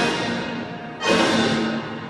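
Recorded backing music. The passage fades, then a sudden loud orchestral hit comes about a second in and dies away.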